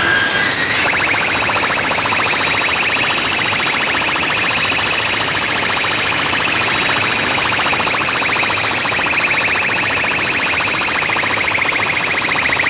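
Large DJ sound system playing a loud, distorted electronic sound effect during a sound check: a steady, harsh, fast-pulsing buzz with no beat.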